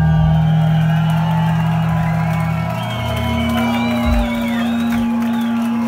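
Heavy rock band playing live, letting a held low note ring out; the note steps up in pitch about three seconds in, under wavering high guitar tones. The crowd whoops.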